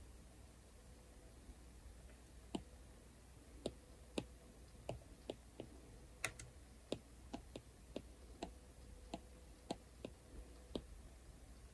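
Apple Pencil tip tapping and clicking on the iPad's glass screen during short drawing strokes: light, sharp taps at an irregular pace of about two a second, starting a couple of seconds in.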